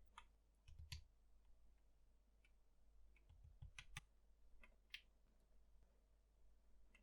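Faint, irregular keystrokes on a custom mechanical keyboard with Gateron Milky Yellow switches and PBT keycaps: about ten sharp clicks spread unevenly, some close together.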